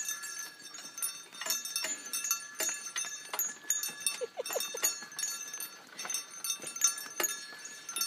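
Harness bells jingling continuously, many small bells ringing with a steady shimmer of clinks. A few short squeaks come about four seconds in.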